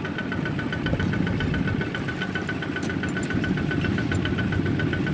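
Kubota ZT140 single-cylinder diesel engine of a two-wheel walking tractor running steadily, with a rapid, even knocking beat.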